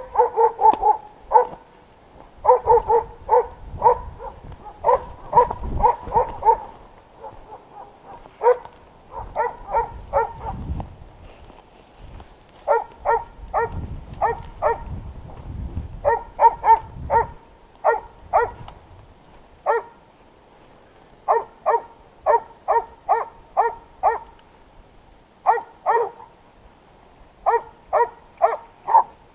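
Boar-hunting dogs barking in quick runs of several barks, again and again, from the scrub.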